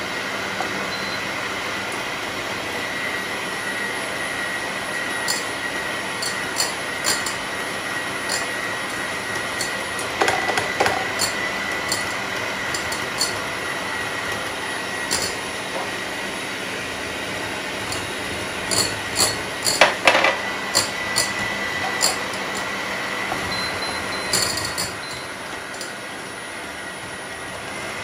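Electric hand mixer running steadily with a high whine, its twin beaters whisking eggs in a glass bowl as oil is worked in. The beaters click against the glass now and then, most often about two-thirds of the way through, and the mixer runs a little quieter near the end.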